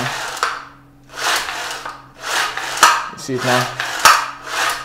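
Recoil starter of a small two-stroke generator having its starter rope pulled out and let rewind again and again: about five rasping strokes, with a sharp click about four seconds in. The newly fitted recoil spring is pulling the rope back in properly.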